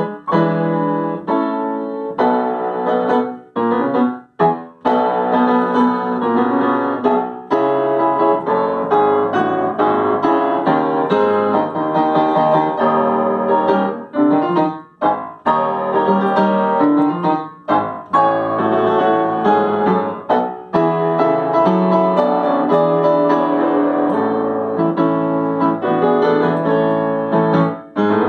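Upright piano played solo: a continuous passage of many notes in both low and middle registers, broken by a few brief rests.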